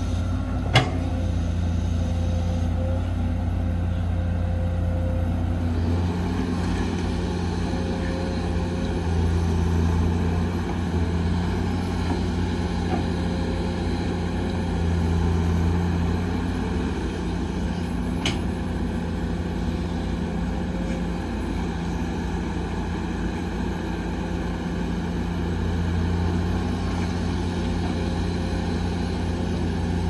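Heavy diesel construction machinery running steadily, with the engine drone swelling and easing a few times as it works. Two sharp knocks cut through, one about a second in and another past the middle.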